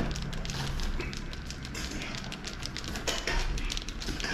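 A block of cheese being grated on a handheld grater: a rapid run of short, uneven scratchy rasps. A low steady hum sits underneath.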